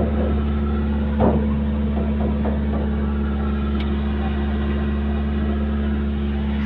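An engine idling steadily, a constant low hum, with a short clatter about a second in.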